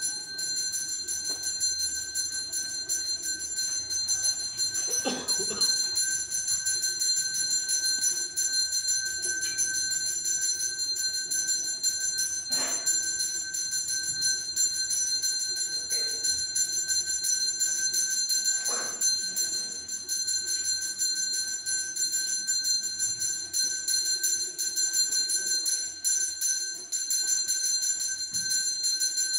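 Temple bell rung rapidly and without pause, a steady metallic jangle of ringing tones, with a few brief knocks along the way.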